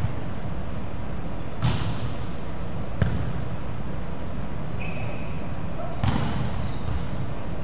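A volleyball being played: three sharp ball impacts, about a second and a half in, at three seconds and about six seconds in, each echoing briefly, over a steady background rumble. A short high squeak sounds near five seconds.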